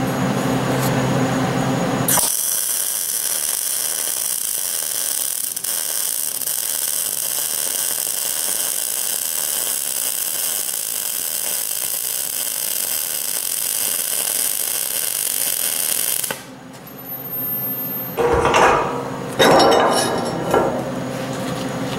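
A welding machine hums, then about two seconds in a MIG welding arc strikes and runs with a steady high hiss for about fourteen seconds before cutting off suddenly. A few loud knocks follow near the end.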